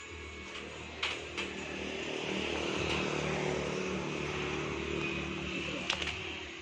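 A motor vehicle's engine passing by, growing louder to a peak in the middle and then fading away, with a few sharp knocks near the start and near the end.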